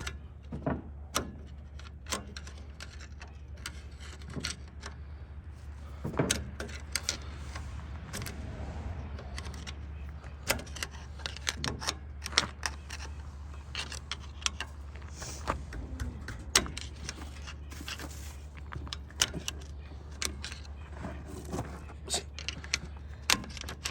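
Hand tools clinking and tapping irregularly on the metal parts of a truck's wheel hub, as a stubborn part is worked loose. Short scattered clicks over a steady low hum.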